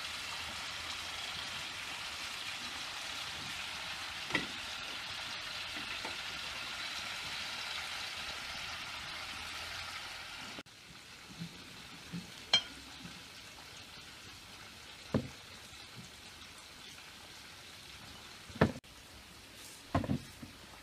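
Chicken pieces frying in a pan, a steady sizzling hiss that cuts off suddenly about ten seconds in. After it, a few scattered knocks and clicks.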